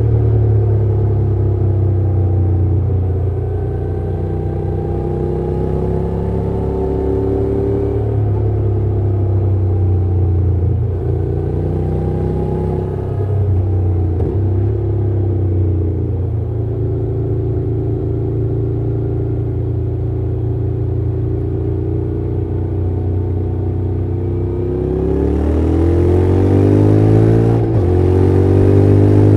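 Honda NC750X's 745 cc parallel-twin engine and exhaust under way, running at a steady pitch, easing and picking back up a little past the middle. Near the end it accelerates, its pitch climbing twice with a gear change between.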